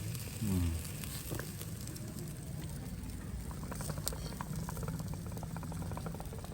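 Meat sizzling and crackling as it cooks over an open fire, with small pops through the middle and a steady low hum underneath.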